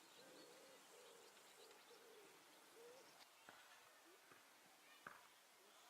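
Faint, low cooing bird calls repeated in short notes, fading out after about three seconds, followed by a few soft clicks.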